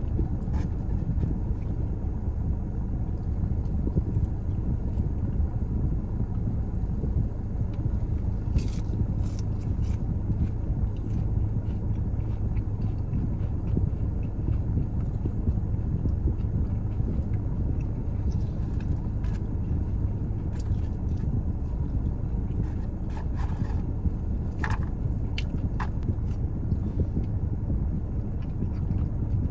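Eating crispy fried chicken strips, with a few sharp bites or crunches in two clusters, about a third of the way in and again near the end, over a steady low rumble.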